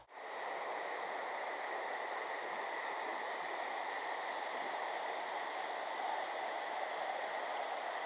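Steady outdoor ambience on a forest trail: an even rushing hiss with a steady high hum in it and a few faint, very high chirps.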